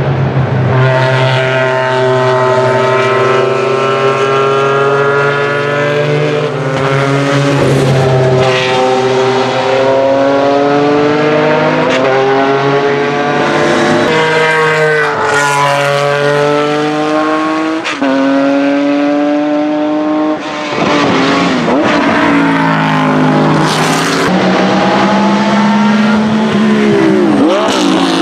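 Porsche 996 GT3 RS and RSR race cars' 3.6-litre flat-six engines at high revs, heard over several passes. The pitch climbs, drops at each gearshift and climbs again, and falls in steps as the cars downshift for corners.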